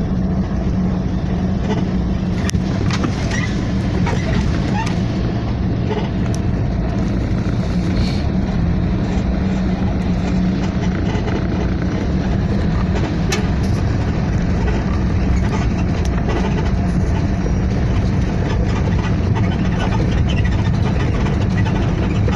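Vehicle engine running steadily, a constant low hum with no change in pace, from a vehicle moving through a flooded street.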